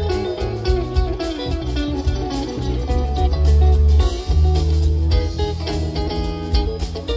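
Live rock band playing: electric guitars over bass guitar and a drum kit with steady drum hits, with no singing.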